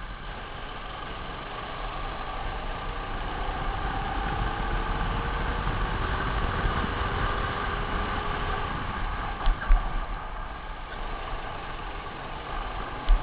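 Racing kart engine running on track, recorded on board the kart, its note climbing gradually as it accelerates. Two short low thumps come about ten seconds in.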